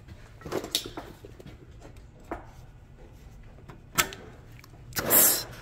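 Scattered clicks and knocks of metal brake hardware being handled and fitted back onto the caliper, then a louder noise lasting about half a second near the end.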